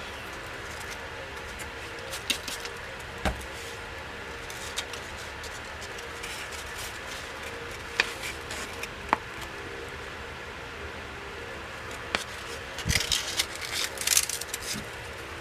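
A steady low hum of room tone, broken by a few scattered light clicks and taps, with a short run of crackling clicks near the end.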